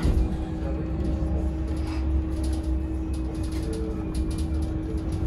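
Heuliez GX 337 Linium electric bus under way, heard from inside the cabin: a steady low rumble with a constant even hum over it and scattered light clicks and rattles.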